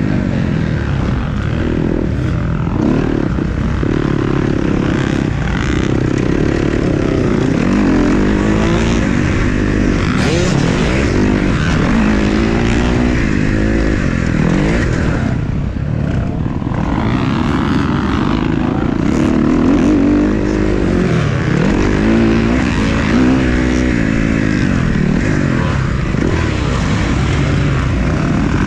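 Motocross dirt bike engines racing, their pitch rising and falling continually as the riders throttle on and off and shift through the gears, with several bikes overlapping.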